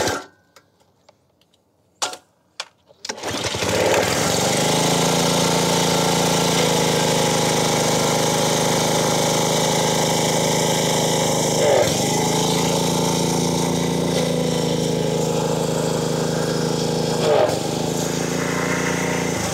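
Honda GCV160 single-cylinder lawn-mower-type engine on a pressure washer being pull-started on choke after a carburetor replacement: a few short clicks from the recoil, then the engine catches about three seconds in and runs steadily, its pitch dipping briefly twice. It starts and keeps running on the new carburetor.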